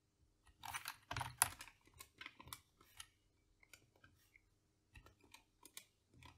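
Computer keyboard keystrokes and mouse clicks, irregular taps with a denser run of keystrokes about a second in, then scattered single clicks.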